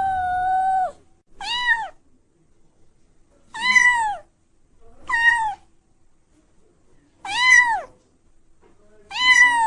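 Domestic cat meowing repeatedly: a long drawn-out meow ends about a second in, followed by five shorter meows, each rising then falling in pitch, spaced a second or two apart.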